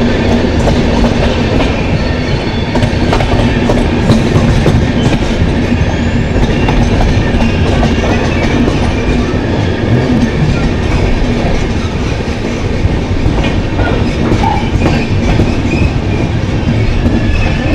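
Passenger train running at speed, heard from on board: a steady rumble with a low hum, and the wheels clattering over rail joints.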